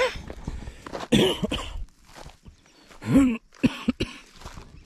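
A man with a sore throat coughing and clearing his throat in two short bursts, about a second in and again about three seconds in.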